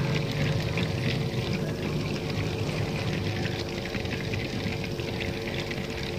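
Air bubbling through the gasoline and water bottles of a homemade gasoline-vapour gas generator, over the steady hum of the small air pump that drives it.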